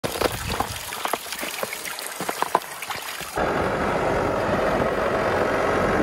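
Water pouring from a hose into a rubber stock tub, a thin stream splashing steadily. About three and a half seconds in, it gives way abruptly to the steady running of a Versatile 150 tractor.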